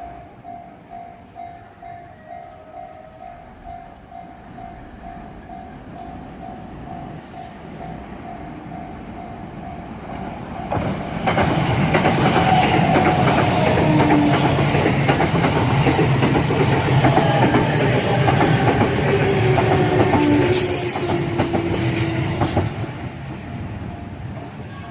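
Level crossing warning bell dinging in a steady beat. About ten seconds in, an E353 series electric limited express train arrives and passes loudly for about eleven seconds, its wheels clattering over the rail joints, then fades away.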